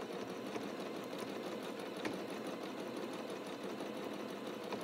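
Janome Skyline 6 sewing machine running steadily, stitching with the darning foot and the feed dogs lowered while the fabric is moved back and forth by hand to darn.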